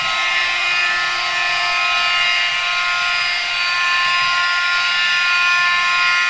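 Model railcar of a TER Bourgogne regional train running along the track: a steady electric motor whine with several held tones over a hiss.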